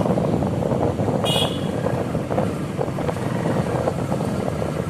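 Motorcycle riding along a road, heard from on the bike: steady engine and road noise with wind on the microphone, and a brief high tone about a second in.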